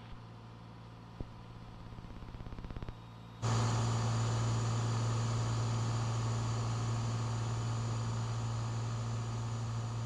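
Cessna 182 engine and propeller drone, a steady low hum, with a single click about a second in and a quick run of clicks a little later. About three and a half seconds in, the sound jumps suddenly to a much louder steady drone with hiss.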